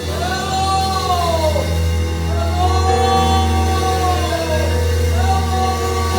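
Slow worship music: a steady held chord over a low bass note, with a voice singing three long notes that rise, hold and slide down.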